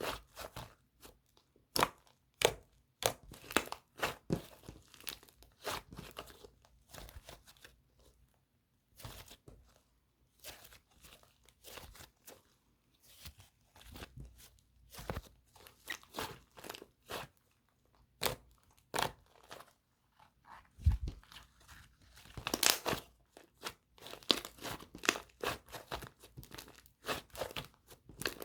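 Clay-type slime (액점) being squeezed and worked by hand, giving irregular crackling, crinkly pops in quick runs with short pauses, and a soft '사르르' sizzle that is unusual for this kind of slime.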